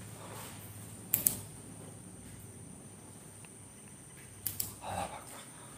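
Faint creaks and clicks over a steady background hiss: a pair of short clicks about a second in and a few more near the end.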